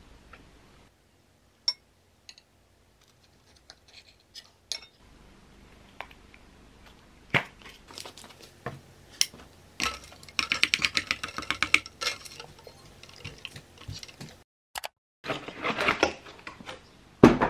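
Scattered light clinks and taps of cutlery and tableware on a plate, then a fast run of clicks and clatter around a tumbler of iced water about ten seconds in. Near the end, cardboard rustles as a small box is opened.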